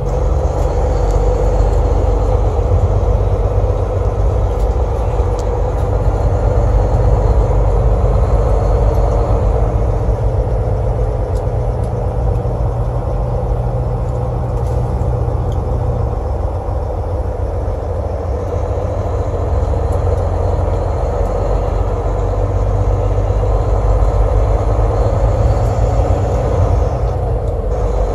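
Steady road and engine noise heard inside a moving vehicle's cabin: a continuous low rumble with tyre noise.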